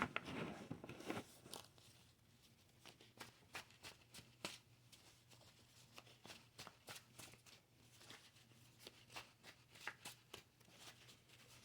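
Faint, irregular clicks and light rustles of tarot cards being handled and shuffled.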